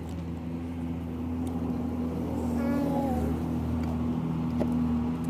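A motor vehicle's engine running with a steady hum that slowly grows louder.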